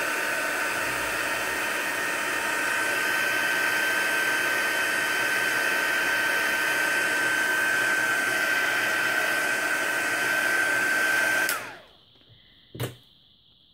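Handheld craft heat gun blowing steadily, with a constant high whine over its fan noise, as it melts wax into paper. It is switched off near the end and winds down, and a single knock follows about a second later.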